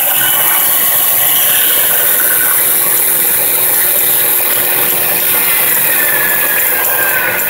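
Chicago Electric corded drill running steadily on power from a 6250-watt generator turned by a 24-volt DC motor, with the motor-generator set running alongside it. A whine drops slightly in pitch near the end. The owner is not sure the generator is reaching its rated 3600 RPM.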